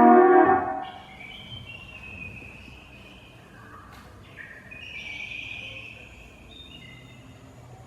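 A ringing bell tone fades out within the first second, followed by faint chirping.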